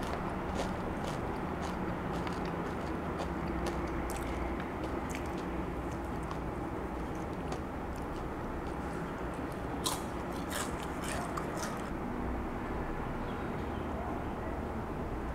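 Crispy fried-chicken batter crust crackling and crunching in irregular sharp snaps as the piece is pulled apart by hand, with a loud cluster of crackles about ten seconds in.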